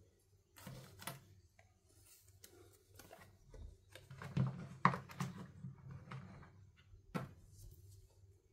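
A plush baby doll being handled and set into a hard plastic cradle pod: soft fabric rustling with a few light plastic clicks and taps, the loudest tap just past halfway and another near the end.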